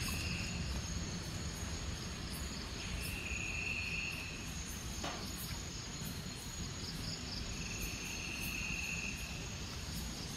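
Night insects calling, crickets among them: a steady high-pitched shrill, with another call in buzzy bursts of about a second that come back every few seconds.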